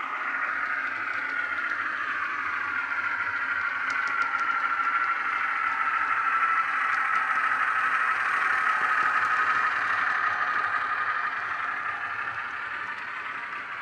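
Ruston 48DS model diesel shunter's DCC sound decoder playing its diesel engine sound through a small onboard speaker as the locomotive runs with its train. A steady engine note that sinks slowly in pitch, with a few light clicks about four and seven seconds in.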